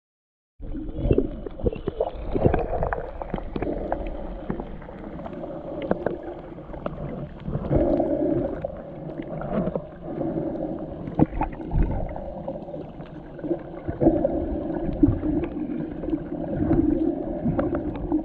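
Muffled underwater sound picked up by a camera held below the surface while snorkeling: water sloshing and gurgling, with frequent small clicks and knocks throughout.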